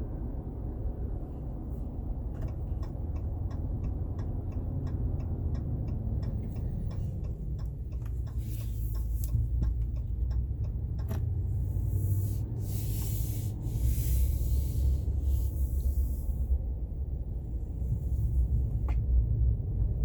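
Low, steady driveline and road rumble inside the cab of a 2019 Ram 1500 driving in 4WD Auto, with the faint groaning or scraping in corners that the owner blames on the 4WD Auto system. A run of even ticks, about three a second, comes from about two to eight seconds in, and bursts of hiss come around the middle.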